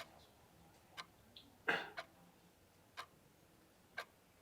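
A clock ticking once a second, five sharp ticks, with one short louder rustle between the second and third ticks.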